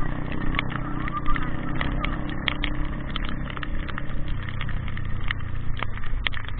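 A motor vehicle running steadily with a low hum, with scattered short clicks and taps throughout.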